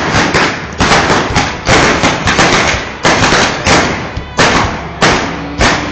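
A rapid, irregular volley of blank gunshots from a staged Wild West gunfight, well over a dozen loud shots, each followed by a short echo.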